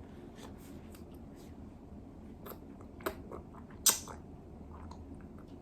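A baby's small mouth and lip smacks while being fed, with scattered short clicks; a sharp click about three seconds in and a louder one about a second later.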